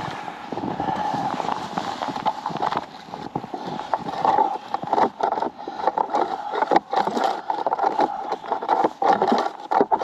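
A long hooked metal rod scraping and knocking inside a beehive's wooden bottom-board entrance, raking out dead bees, with repeated irregular scrapes and clicks.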